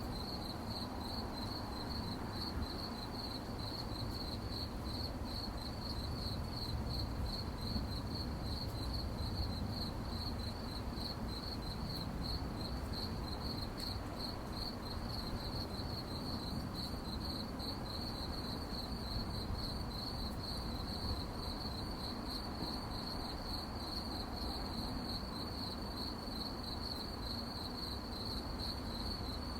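Crickets chirping at night in a steady, rapid pulsing trill, with a low rumble of background noise beneath.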